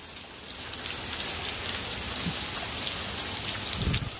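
Heavy rain pouring down in a downpour, a steady hiss with many separate drops striking close by; it grows louder about half a second in. A short low thump comes near the end.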